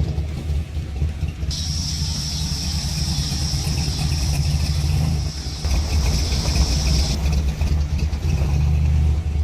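A car engine running with a steady deep rumble; a high hiss joins for several seconds in the middle.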